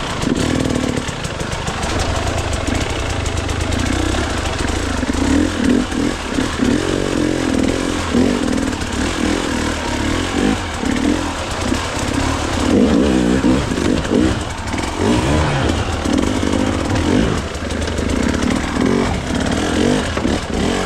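Gas Gas dirt bike engine revving up and down as the rider picks a line through rough, wet trail terrain, the pitch rising and falling throughout.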